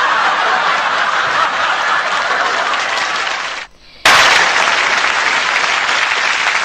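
Audience applause, a dense steady clatter of many hands. It cuts out abruptly for about half a second a little before four seconds in, then starts again just as loud.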